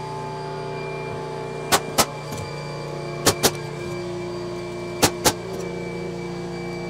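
Pneumatic nailer driving nails into a 2x4 wall frame: three pairs of sharp shots, the two shots of each pair about a quarter second apart. Under them runs a steady machine hum.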